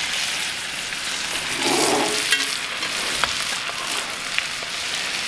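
Two New York strip steaks sizzling in butter and oil in a tilted cast iron skillet as they are basted, a steady frying hiss with a few light clicks.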